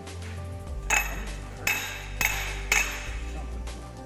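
Four sharp metallic clinks, about half a second apart after the first, as hand tools and parts knock against each other while camshafts are fitted into a 1JZ cylinder head.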